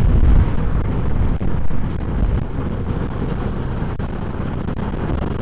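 Riding noise from a Yamaha FZ25 motorcycle at highway speed: wind rushing over the camera microphone, with the single-cylinder engine running under it. It gets a little quieter about two seconds in.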